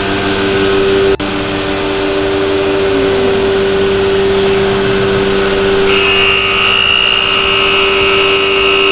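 SCM CNC router running with a steady mechanical hum, and a higher whine joining about six seconds in.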